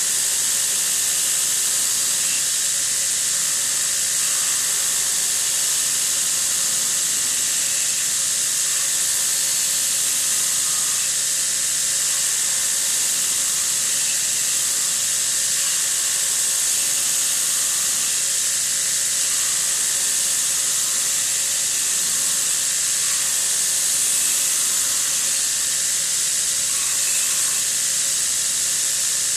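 Belt grinder running, its abrasive belt sanding a wooden hammer handle against the contact wheel: a steady high hiss over the machine's even whine.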